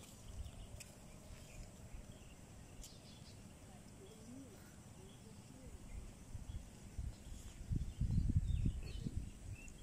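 Outdoor ambience: irregular low gusts of wind on the microphone, loudest about eight seconds in, over a steady faint high-pitched insect drone.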